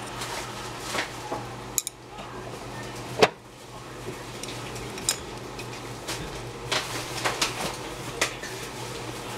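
Kitchen utensils clinking and knocking against a cooking pan: a scattered series of sharp clinks, the loudest about three seconds in, over a steady low hum.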